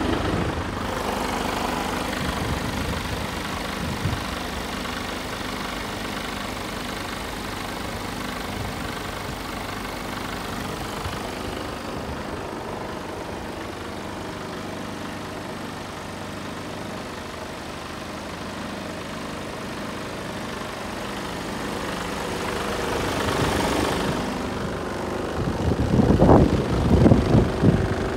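Mercedes Actros 2545 truck's straight-six diesel idling steadily. Loud, irregular low buffeting near the end.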